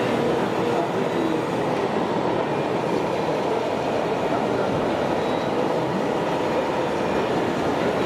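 Steady mechanical rattle and rumble of radio-controlled model construction machines working in dirt, chiefly a model Liebherr crawler loader on its tracks.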